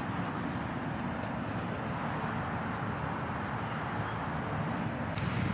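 Steady outdoor background noise with a low rumble, with no distinct events.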